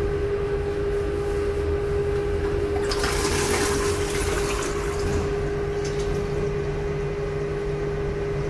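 Stainless-steel toilet flushing in a tiled cubicle: a rush of water starts about three seconds in, lasts about two seconds and then dies away, over a steady hum.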